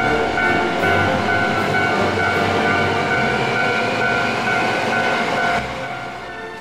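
Hankyu electric commuter train running past a station platform, its wheels and motors rumbling as it draws away; the sound drops off about five and a half seconds in as the last car passes.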